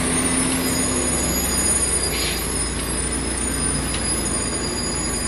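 Heavily loaded multi-axle truck's diesel engine running steadily as the truck pulls through the curve, with a short hiss about two seconds in.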